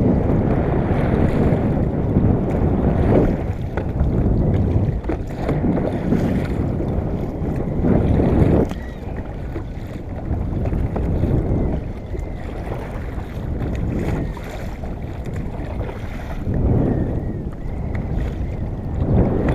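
Wind buffeting the microphone in gusts that swell and ease every few seconds, with sea water washing against a fishing kayak.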